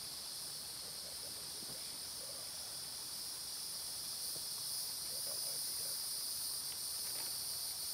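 Steady, high-pitched chorus of insects in the surrounding forest, an unbroken shrill drone.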